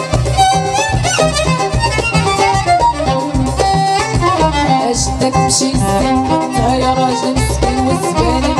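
Instrumental break of a live Moroccan chaabi band: a violin carries a gliding melody over a steady low beat, with no singing.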